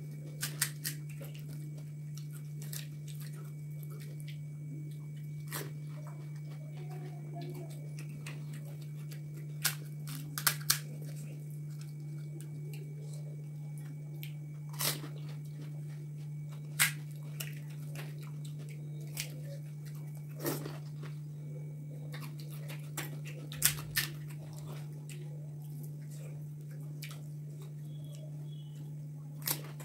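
Crisp fried puri shells cracking and crunching as they are broken open and bitten, in scattered sharp cracks a second or more apart, with chewing between. A steady low hum runs underneath.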